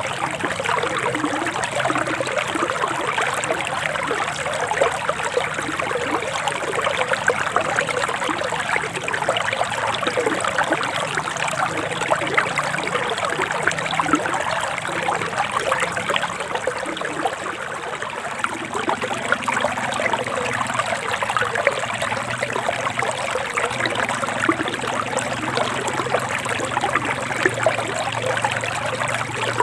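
Forest river water flowing: a steady trickling, babbling rush with constant small splashes.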